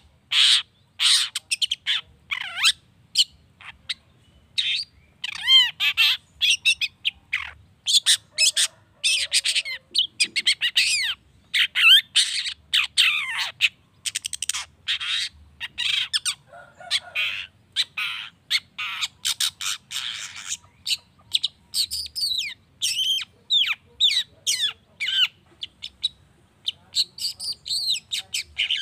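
Long-tailed shrike (cendet) singing a fast, varied song of short harsh chattering notes mixed with sweeping whistles, pausing only briefly.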